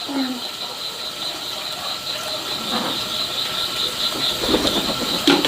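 Insects calling in a steady, pulsing rattle, with soft rustling about four to five seconds in.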